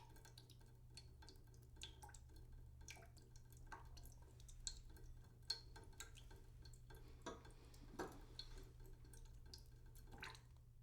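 Water dripping slowly into a cooking pot in a sink: irregular single drops, some with a short falling plink, over a steady low hum.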